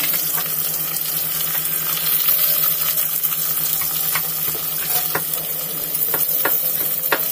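Freshly chopped onions sizzling in hot oil and ghee in a metal kadai. A metal spatula scrapes and knocks against the pan several times in the second half.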